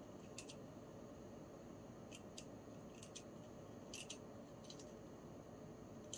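Faint, scattered small metallic clicks from the gear train of a Sturmey-Archer S3B three-speed hub as it is turned by hand, checking that the gears mesh and spin freely without binding. The clicks come about nine times at uneven intervals.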